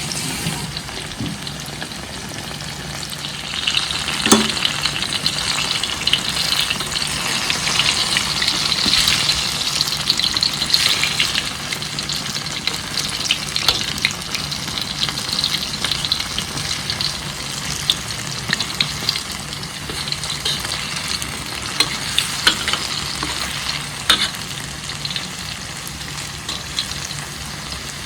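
Banana fritters (pisang goreng) frying in hot oil: a steady sizzle that grows louder about four seconds in, with a few sharp clicks.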